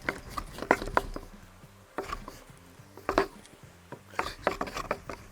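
Flat wooden board rubbing and knocking as a cotton-and-ash fire roll is rolled hard and fast beneath it against a second board, to heat the roll by friction until the cotton smoulders. The knocks and scrapes come irregularly, the loudest about a second in and again after three seconds.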